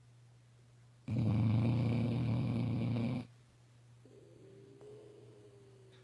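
Chocolate Labrador retriever puppy snoring: one loud snore of about two seconds, starting about a second in. A faint, thin whistle follows.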